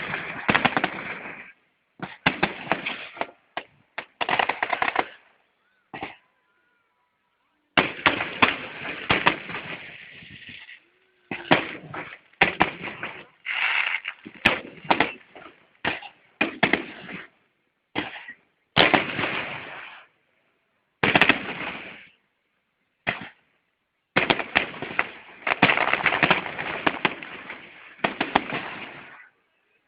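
Fireworks display: rapid volleys of bangs and crackling come in clusters of one to three seconds, with sudden silent gaps between them.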